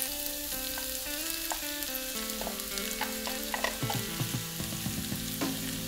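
Diced potatoes and onion rings sizzling in a nonstick frying pan while a wooden spatula stirs them, with scattered light knocks and scrapes of the spatula. In the second half browned minced meat is tipped into the pan.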